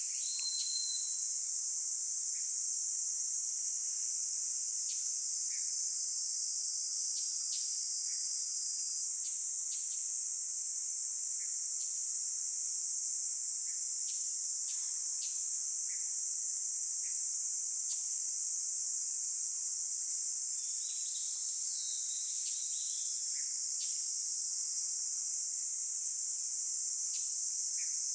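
A steady, high-pitched insect chorus, with scattered short bird calls throughout and a cluster of bird notes about two-thirds of the way in.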